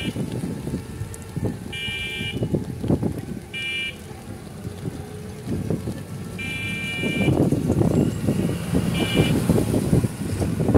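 Vehicle horn sounding in a few short, steady-pitched honks, one held a little longer about halfway through, over a low rumble of road and traffic noise that grows louder in the second half.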